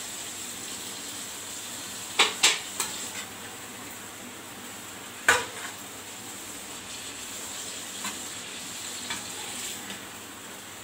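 Chicken frying in a metal karahi, sizzling steadily, while a perforated metal skimmer spoon stirs it and knocks on the pan. The spoon clanks two or three times about two seconds in, once loudly near five seconds, and faintly a few times later.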